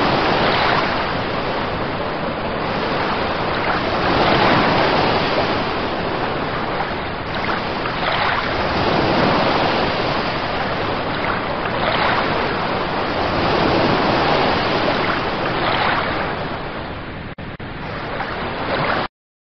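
Ocean waves washing in: a steady rush of surf that swells and eases every three to four seconds. It cuts off suddenly near the end.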